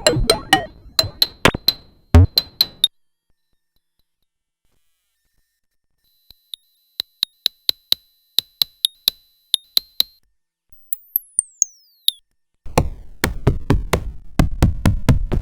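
Eurorack noise module built from square-wave oscillators, a Jupiter Storm-style 'Cosmic Noise' unit, making electronic clicks and pulsing bursts. The sound stops about three seconds in. It comes back as sparse, evenly spaced clicks over a thin high whistle, then a quick falling zap. Near the end dense low pulsing bursts start.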